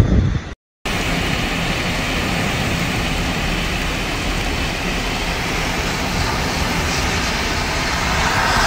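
Steady rushing noise of a car on the move in a rainstorm, with wind, rain and tyre noise blended together. It starts abruptly just under a second in and grows a little louder near the end.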